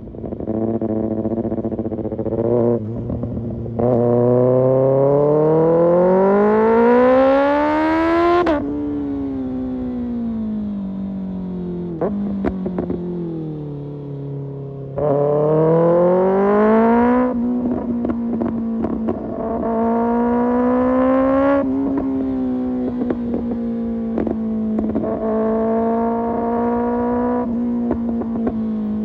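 Kawasaki ZX-6R's 636 cc inline-four through an Arrow Pro Race exhaust, ridden hard. It revs up steeply for about four seconds and drops off abruptly, winds down for several seconds, pulls hard again, then holds a steady high-revving note with small dips. Scattered short sharp clicks run through it.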